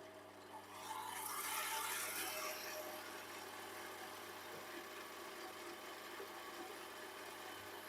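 Small metal lathe running with a drill bit in the tailstock being fed into aluminium: a louder scraping hiss of the cut for a couple of seconds about a second in, then the steady whir of the spindle motor. The drill is not cutting well, which the machinist puts down to a bad drill bit.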